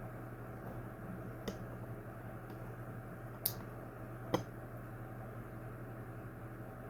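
A steady low hum with three light clicks, about one and a half, three and a half and four and a half seconds in.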